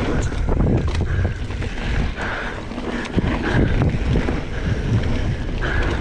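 2017 Giant Trance 2 mountain bike ridden along a dirt trail: wind buffeting the microphone over tyre rumble, with sharp knocks and rattles and short higher-pitched buzzes now and then.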